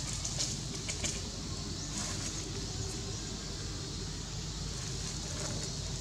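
Steady outdoor background hiss with a low hum beneath it, and a few faint rustles of dry fallen leaves as the macaques shift on the leaf litter, about half a second, one second and two seconds in.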